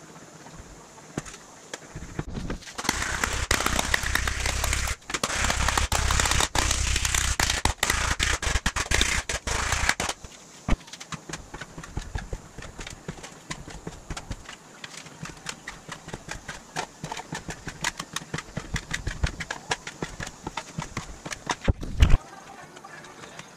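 A thin aluminum sheet being rolled back and forth through an English wheel to stretch it, making a loud rattling metal noise for several seconds. Then comes a long run of light clicks and taps, and a single sharp knock about 22 seconds in.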